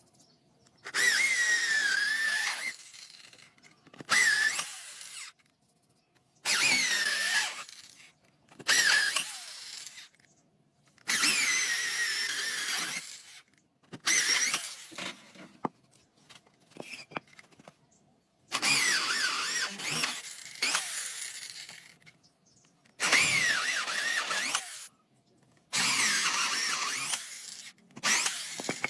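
A handheld power tool working wood in about nine short bursts, each a second or two long, with a squealing pitch that dips and rises during each burst.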